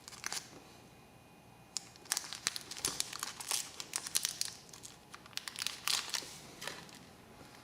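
Crinkling and a quick run of small sharp clicks from hands handling small lighter parts and their packaging, dense from about two seconds in and easing off near the end.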